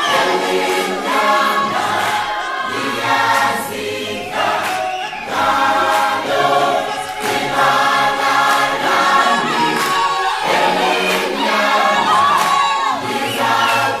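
A choir singing held chords in phrases with short breaks between them.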